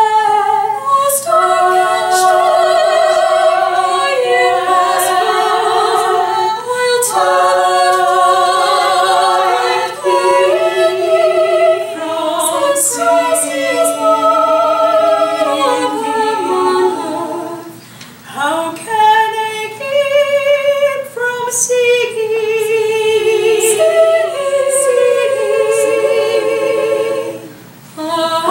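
Four women singing a cappella in close harmony: several sustained vocal lines at once, with no accompaniment. There are two short pauses for breath, about two-thirds through and just before the end.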